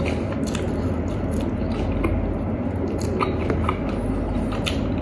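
Close-up chewing of crispy spicy fried chicken: scattered soft crunches and wet mouth clicks over a steady low hum.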